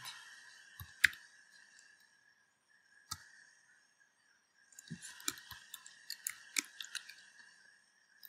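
Computer keyboard typing: a single sharp keystroke about a second in, another near three seconds, then a quick run of keystrokes from about five to seven seconds.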